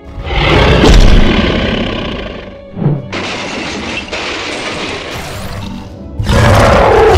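Dubbed cartoon sound effects over background music: a loud crashing, shattering effect that swells about a second in and fades, a short sharp hit near three seconds, then a steady hissing effect. Near the end a monster's growling roar starts.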